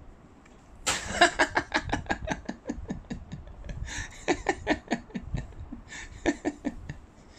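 A person laughing hard: a long run of rapid 'ha' pulses starting about a second in, broken by breathy gasps for air.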